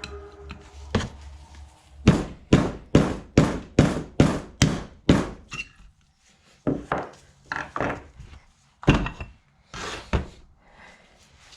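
Repeated hammer strikes: a quick even run of about eight blows, then after a short pause several slower, irregular blows.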